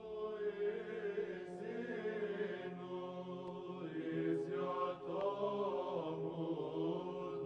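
Orthodox church chant: voices singing a slow melody in long held notes over a steady held lower note.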